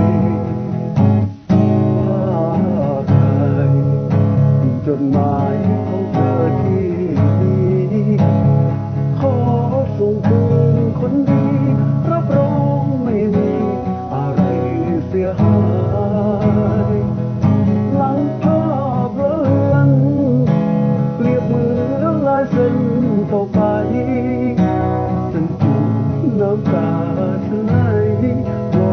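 Music: a strummed acoustic guitar with a wavering melody line over it, and a brief drop in level about a second and a half in.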